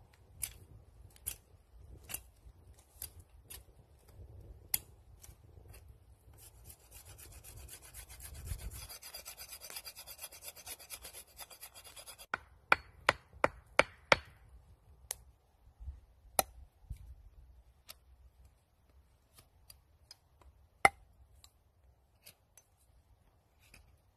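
A knife carving a green wooden stick. There are scattered scrapes and clicks, then a steady rasping run of shaving strokes from about six to twelve seconds in, followed by a quick series of sharp knocks and more occasional cuts.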